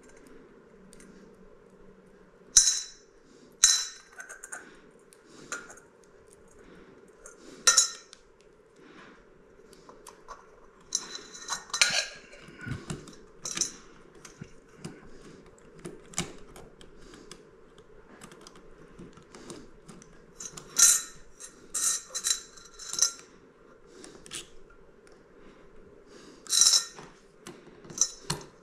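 Small metal hardware on a ceiling light fixture's mounting (washers, nuts, crossbar and threaded rod) clinking and clicking as it is handled and fitted, in scattered sharp clinks, some loud, over a faint steady hum.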